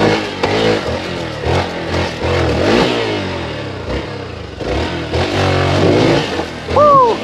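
Hero XPulse 200's single-cylinder engine revved hard in repeated rising and falling bursts as the bike claws up a steep, rough off-road section. A brief shout rings out near the end.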